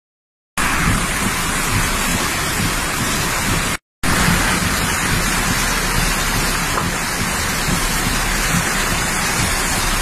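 Flash-flood water rushing in a loud, steady roar over and across a road. It starts about half a second in and breaks off for a moment just before four seconds.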